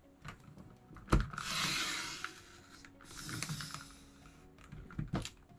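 Sliding-blade paper trimmer cutting a sheet of patterned scrapbook paper: a sharp click about a second in, then a hiss of about a second and a half as the blade runs along the paper, a shorter hiss about three seconds in, and a couple of clicks near the end.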